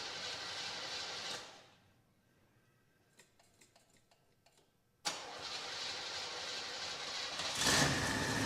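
Classic Mercedes-Benz engine running, then dying away about a second and a half in. After a few seconds of quiet with a handful of light clicks, it comes back abruptly about five seconds in and gets louder near the end, as if revved.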